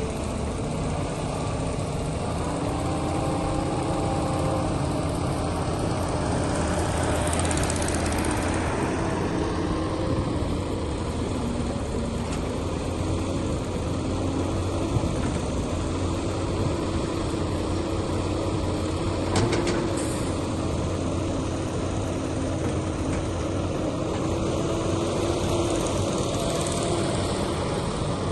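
A CAT 320C hydraulic excavator's diesel engine running steadily with a wavering tone, swelling louder for a few seconds about seven seconds in. A couple of short, sharp clicks come about two-thirds of the way through.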